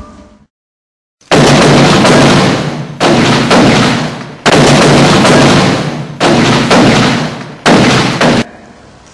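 Five loud blasts, about a second and a half apart, each dying away over a second or so; the last one cuts off suddenly.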